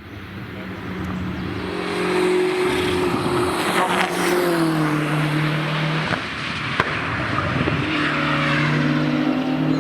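BMW M6 GT3's 4.4-litre twin-turbo V8 race engine running hard on track, getting louder over the first two seconds. Its pitch steps down about four seconds in.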